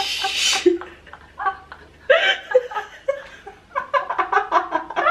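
Young women laughing hard in breathy bursts, ending in a quick run of laugh pulses, about five a second, near the end.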